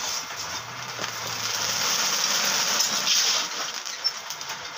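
Rice being fried into puffed rice (muri) in a hot wok, stirred and tossed: a steady hissing rush that swells in the middle, as a thick cloud of steam and smoke comes off the pan.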